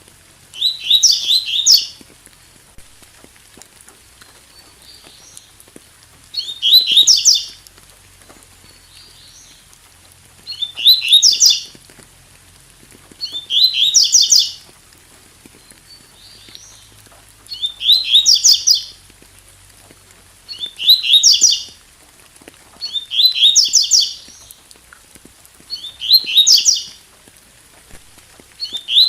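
Double-collared seedeater (coleiro) singing its 'tui tui' song: a short, loud phrase of rapid high notes about every three seconds, around nine phrases in all, over a faint steady hiss of rain.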